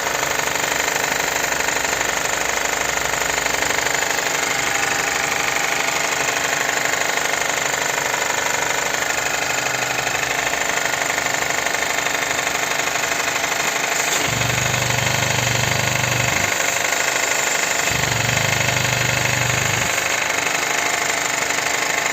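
GAC car engine running with a fast, steady knocking rattle, which the mechanic links to a slack timing chain with no tension. A low hum comes in twice in the second half.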